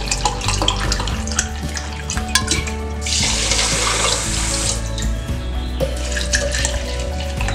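Water poured from a plastic jug into a steel pot of sugar, one splashing pour of about two seconds starting about three seconds in, over background music.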